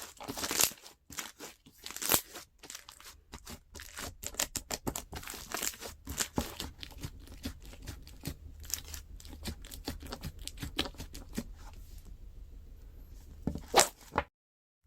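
Crunchy slime being squeezed and pressed by hand, giving a dense run of small crackles and pops. It grows softer late on, with a couple of louder snaps just before it cuts off abruptly.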